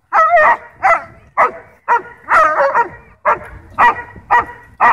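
German Shorthaired Pointer barking over and over at another dog, about two barks a second, some short and some drawn out with a wavering pitch: playful, provoking barking.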